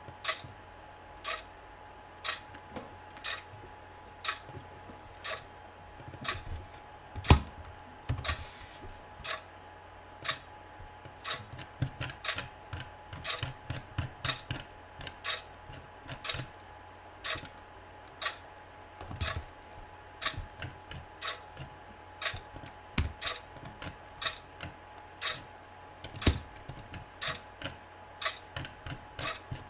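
Computer keyboard typing in irregular runs of key clicks over a clock ticking about once a second, with a few louder single clicks. A faint steady tone sits underneath.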